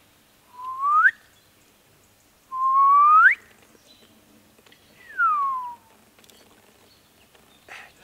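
Someone whistling three clear notes, each a single sliding pitch: a short rising whistle, then a longer, louder one rising higher, then a falling one. A faint tap near the end.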